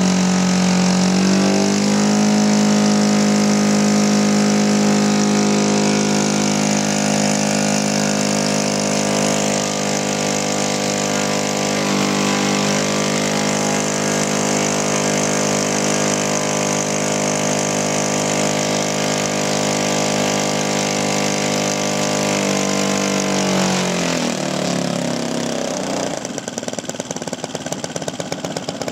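Kolm EZ 65 four-stroke petrol engine in a large RC model warbird, running steadily on the ground at a fast idle with its propeller turning. Near the end it drops in pitch and settles to a slow idle, its separate firing beats clearly heard.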